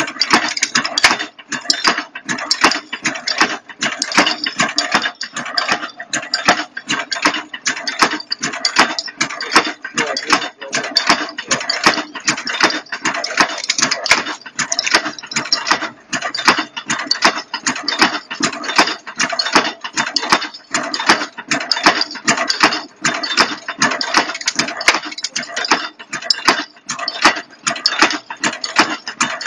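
Automatic strapping wire-buckle forming machine running, its cams, slides and forming arms bending wire in a fast, even clatter of metal strokes, several a second.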